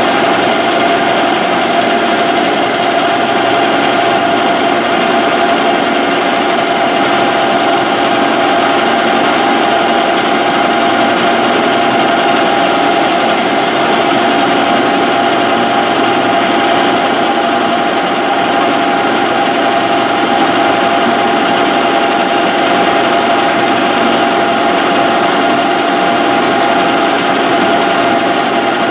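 Metal lathe running under power while a carbide insert tool takes a roughing cut along a steel gearbox shaft turning between chuck and live centre. The sound is a steady machine hum with one strong tone, unchanging throughout.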